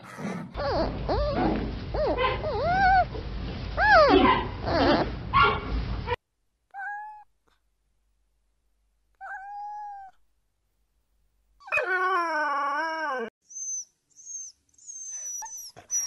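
A run of separate animal calls: a noisy stretch of wavering calls for the first six seconds, then two short mewing calls, a longer wavering whine a few seconds later, and high squeaks near the end.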